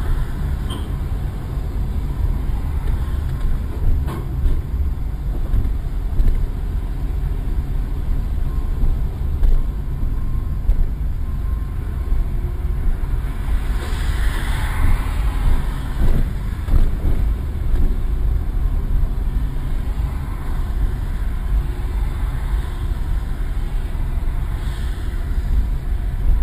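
Steady low rumble of a car driving along a rough road, heard from inside its cabin, with a brief louder hiss about halfway through.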